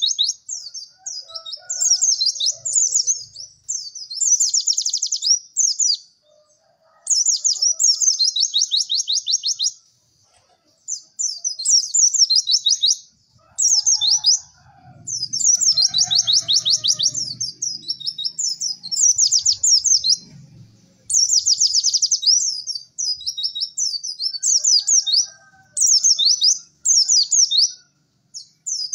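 White-eye (pleci) singing in fast, high chirping and trilling phrases of one to three seconds with short pauses between them. This is the 'cek cek werr' song used as a masteran tutor recording for caged birds.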